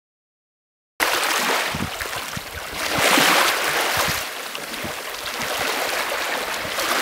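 Small waves washing and draining over a pebble beach. The sound starts about a second in and swells loudest a couple of seconds later, with light wind rumble on the microphone.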